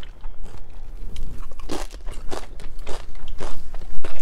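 Someone biting and chewing a crunchy tortilla chip dipped in salsa or queso: a series of irregular, close-up crunches.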